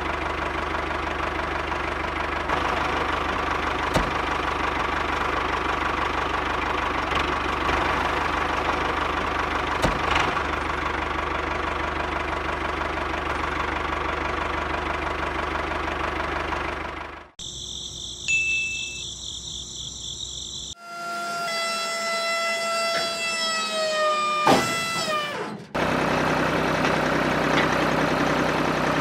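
Small motor of a miniature DIY flour mill running steadily, with a couple of single clicks. About seventeen seconds in, the sound changes abruptly to high steady tones and then a set of tones that fall in pitch. The steady running returns near the end.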